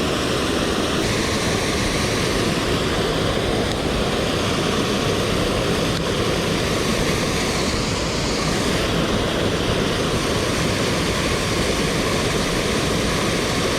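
Mountain stream rushing steadily, an even wash of running water.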